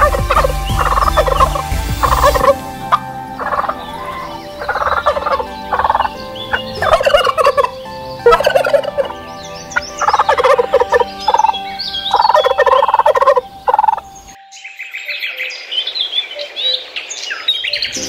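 Turkeys gobbling, with repeated rattling bursts from several birds one after another. About fourteen seconds in, the sound cuts to higher, quicker bird chirps.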